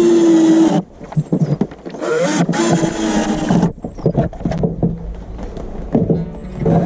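Cordless drill driving screws into the wooden roof of a birdhouse: two bursts of steady motor whine, one at the very start lasting under a second and a longer one about two seconds in.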